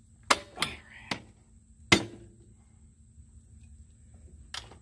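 Sharp plastic clicks and knocks from handling a lawn mower's recoil pull starter and its cord: four in the first two seconds, the loudest near two seconds in, then one more near the end.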